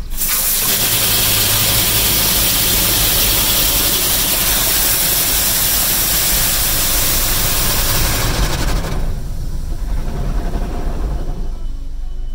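Touchless automatic car wash spraying the car with high-pressure water jets, heard from inside the car: a loud, steady hiss that starts suddenly, then falls away about eight seconds in.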